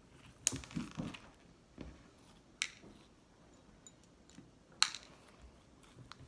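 Slime mixed with clay-like putty being kneaded by hand: a few sharp, sticky clicks and pops among soft squishes.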